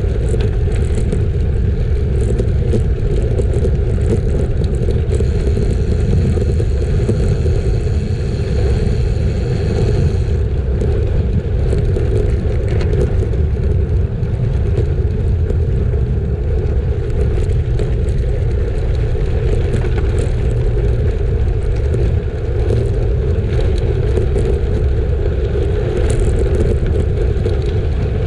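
Steady rumble of a road bike being ridden: wind on the microphone and tyre noise. A faint high whine sounds from about five to ten seconds in.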